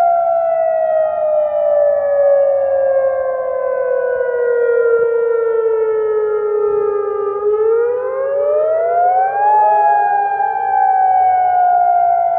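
Civil-defence-style warning siren wailing. A steady tone with overtones slides slowly down in pitch for about seven seconds, swings back up over about two seconds, then slides slowly down again.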